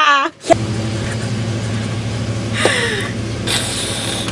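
Gas lawnmower engine running steadily in the background, a low even hum that cuts in about half a second in. Short bursts of hiss come over it near the end.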